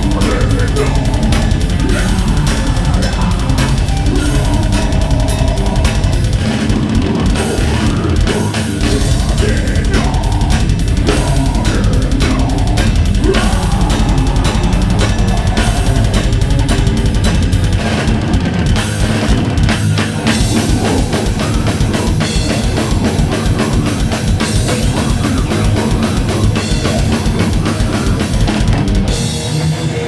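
Death metal band playing live: heavily distorted electric guitars over a drum kit with fast, rapid-fire bass-drum strokes and cymbals.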